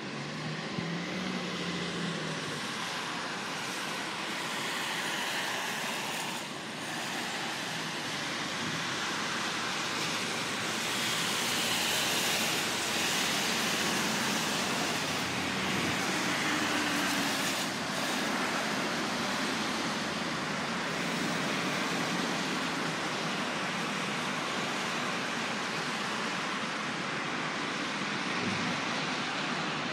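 Road traffic on a busy highway: a steady wash of vehicle and tyre noise, rising a little in the middle as heavier traffic passes.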